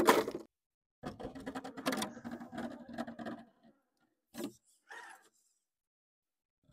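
Redcat Ascent RC crawler's electric motor and geared drivetrain whining steadily under load for about two and a half seconds as it climbs, with quick clicks and scrapes of tyres and chassis on rock. Two brief scrapes follow.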